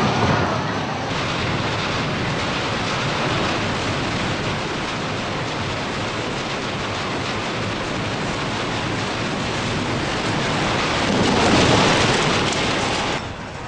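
Loud, continuous rushing noise of violent earthquake shaking, swelling louder near the end.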